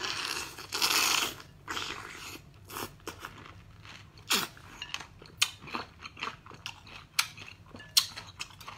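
Close-up mouth sounds of biting into and chewing peeled green citrus fruit: a burst of wet chewing in the first second or so, then scattered sharp crunches and smacks.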